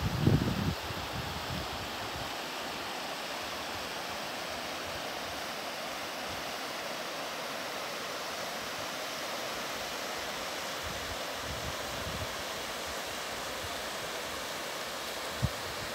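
Mountain stream running over rocks, a steady even rush of water. Wind buffets the microphone in the first second or so, and there is one short bump near the end.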